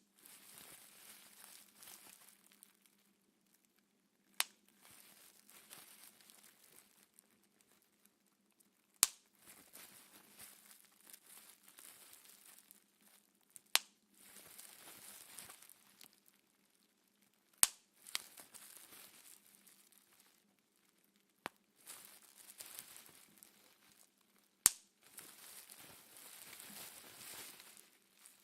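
Aircap bubble wrap being popped: five single sharp pops, about every four to five seconds, each followed by a couple of seconds of plastic crinkling as the sheet is squeezed and handled.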